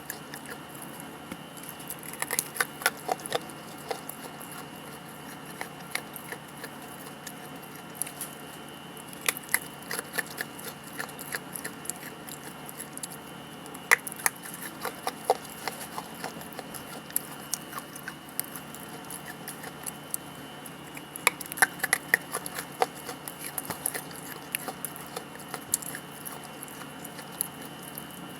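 Crunching of a lump of dried grayish clay being bitten and chewed close to the mic: clusters of sharp crackling clicks every few seconds, with quieter gaps between bites.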